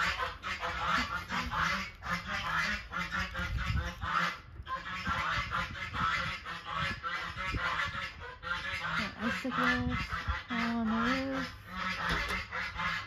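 A flock of domestic geese honking continuously in rapid, overlapping calls. A lower, wavering call joins in from about nine seconds in.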